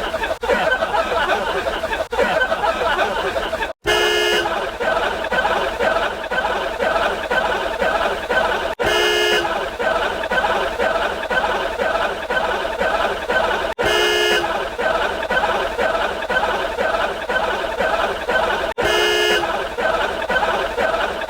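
Rapid, nonstop speech with a short horn-like honk sound effect cutting in four times, about every five seconds.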